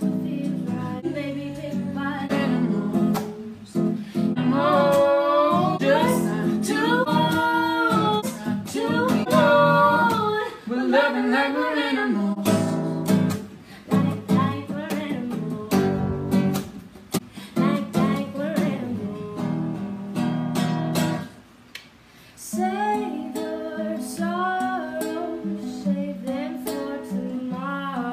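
A woman singing with an acoustic guitar strummed along, her voice held in long notes with vibrato; both break off briefly about three quarters of the way through, then the singing and strumming resume.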